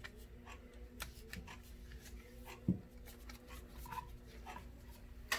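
Faint handling noises of a rifle sling and its metal QD sling swivel: light rustles and small clicks, with one louder knock a little under three seconds in.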